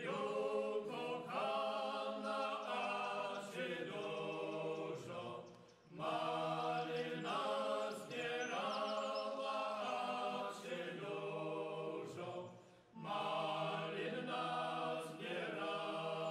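Small folk vocal group singing unaccompanied in harmony, long drawn-out sung phrases with two short pauses for breath, about five and about twelve seconds in.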